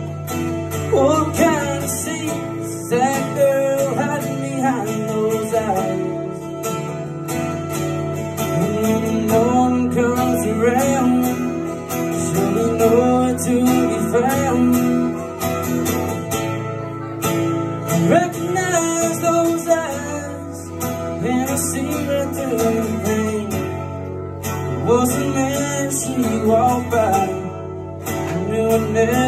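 A man singing while strumming an acoustic guitar: a solo vocal-and-guitar song performed live through a microphone.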